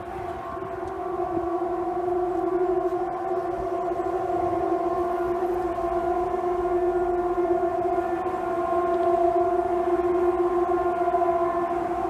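A long, steady siren-like tone held at one low pitch with overtones, wavering slightly and sagging a touch in pitch, growing a little louder later on.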